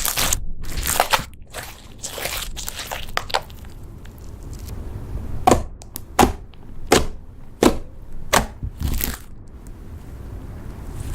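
Slime being squished and worked by hand, with crackling and crunching for the first few seconds, then a run of sharp pops about every 0.7 s from around halfway through.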